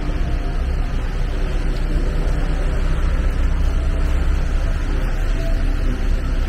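Steady, loud machinery noise: a deep rumble with a broad hiss over it, unchanging throughout.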